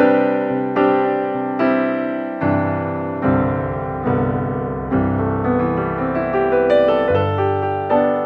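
Background piano music: a slow melody of struck notes and chords, each ringing and fading before the next, about one a second.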